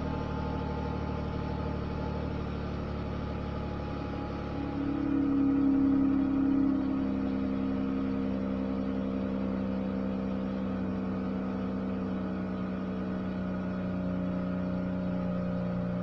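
A 2017 Dodge Charger's 3.6-litre V6 is idling steadily after a cold start. About five seconds in, the engine note swells briefly, then settles to a lower, even idle.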